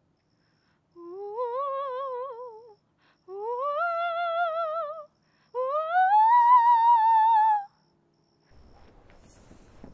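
A ghostly wailing 'oooo' voice: three drawn-out moans, each about two seconds long, wavering in pitch and sliding up at the start, each one higher and louder than the one before.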